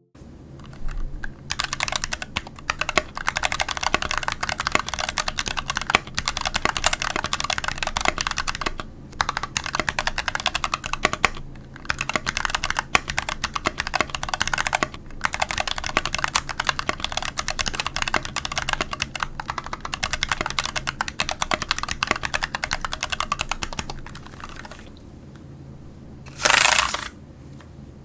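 Fast, continuous typing on a mechanical keyboard fitted with Cherry-profile PBT keycaps over 62g Polaris gray switches in an aluminum plate and case, in runs with brief pauses. About 26 seconds in there is a short loud noise burst, and typing resumes just after.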